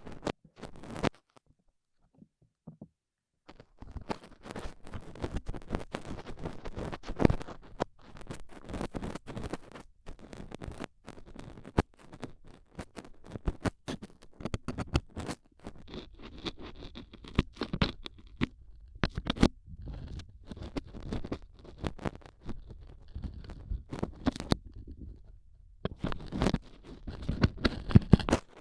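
Stainless steel dental pick scratching and scraping in an ear, a dense run of irregular scratches and sharp clicks. It breaks off for about two seconds near the start.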